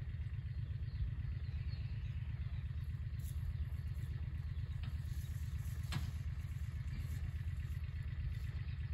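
Utility vehicle (UTV) engine running with a steady low drone as it crawls along slowly, with a couple of faint knocks over it.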